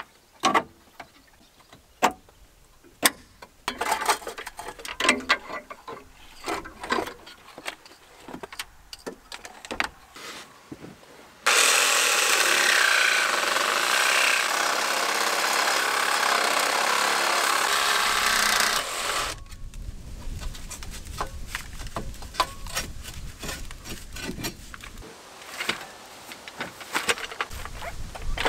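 Hand tools clinking and knocking on car parts, then a cordless power saw cutting through the rusty steel exhaust pipe in one loud, steady run of about seven seconds. After it stops come lower rumbling and scattered knocks.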